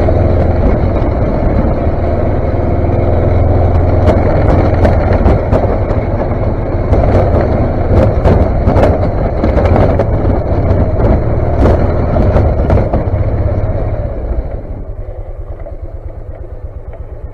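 The engine of a snowplow vehicle running steadily while clearing snow, with scattered clicks and clatter over it. About 14 seconds in it drops to a slow, even idle.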